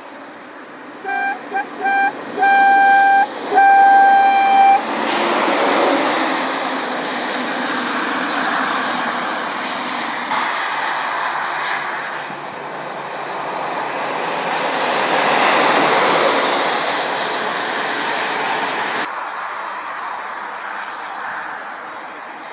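A lorry's horn sounding a quick run of short toots followed by two longer blasts on a single steady note. Then passing lorries and cars: engine and tyre noise that swells and fades, dropping suddenly about three seconds before the end.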